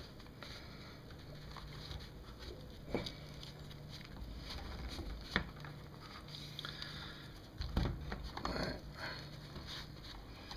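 Handling sounds of a Kindle e-reader being pressed into its cover: faint rubbing and fumbling with scattered clicks and knocks, the sharpest about halfway through and a small cluster a little later.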